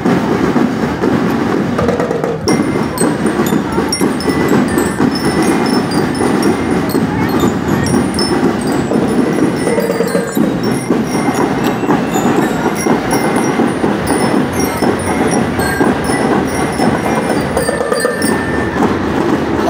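Drum and lyre marching band playing: constant drumming with many short, bright bell-lyre notes ringing above it.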